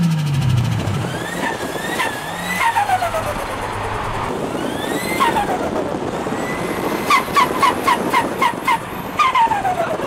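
Turbocharged car engines being revved. The turbo's whistle rises with each rev and glides down when the throttle closes. For about two seconds near the end comes a rapid chirping turbo flutter, about four chirps a second: boost pressure backing up through the compressor as the throttle shuts.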